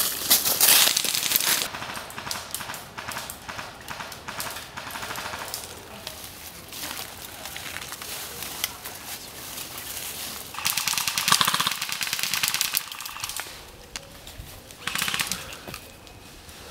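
Airsoft guns firing rapid full-auto bursts: one at the start, a longer burst about two thirds of the way in, and a short one near the end, with scattered quieter ticks in between.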